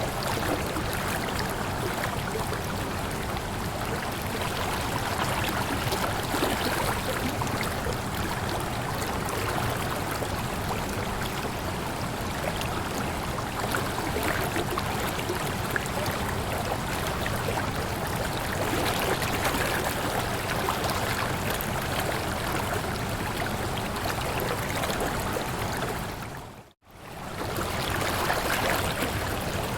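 Waterfall: a steady, even rush of falling water. It fades out to silence for a moment and back in near the end.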